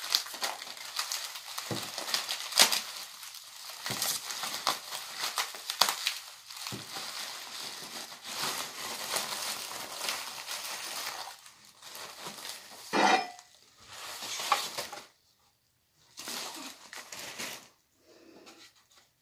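Packaging being handled during the unboxing of a body vibration platform: rustling, crinkling and crumpling, with scattered sharp knocks. The sound breaks into shorter bursts in the second half and stops briefly about three quarters of the way through.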